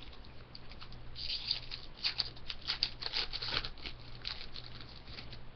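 Foil hockey-card pack wrapper being torn open, with a quick run of sharp tearing and crinkling crackles from about a second in until past four seconds.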